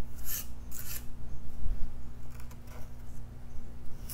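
Metal putty knife scraping and spreading gritty wood filler across a tabletop of craft sticks, in short strokes. Two strong strokes come in the first second, then fainter strokes follow.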